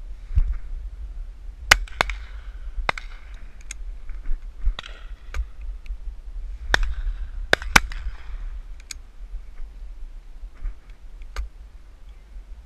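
Shotguns firing at a driven shoot: about a dozen sharp shots spread unevenly, some in quick pairs a fraction of a second apart, some loud and some fainter. Wind buffets the microphone throughout.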